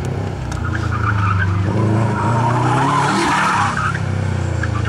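2006 Subaru WRX STi's turbocharged flat-four engine revving hard, its pitch rising and falling as the car is driven at speed, with tires squealing through the turns, loudest about three seconds in.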